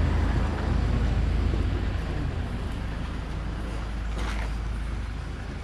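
A motor vehicle passing on the road: a low engine and tyre rumble that slowly fades as it moves away, with a brief rustle about four seconds in.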